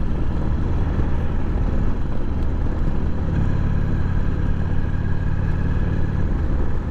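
Harley-Davidson Sportster's V-twin engine running while riding along at road speed, over a steady rush of wind and road noise. The engine note grows stronger for about three seconds in the middle, then eases.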